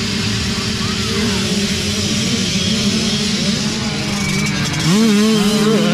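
A pack of mini dirt bike engines revving as the race starts and the bikes pull away. About five seconds in, the nearest bike's engine rises sharply in pitch and loudness as it accelerates hard.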